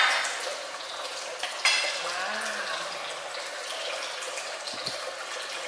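Hot wok steadily sizzling and hissing on the stove as it steams, with one sharp metallic clink about a second and a half in.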